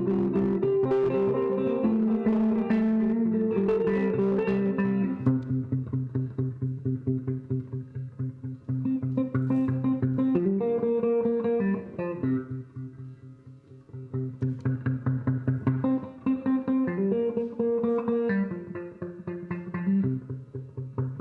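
Live improvised instrumental music on a plucked string instrument, guitar-like: sustained low chord tones under a fast pulse of repeated plucked notes. It thins out and dips quieter for a moment about halfway through, then builds back up.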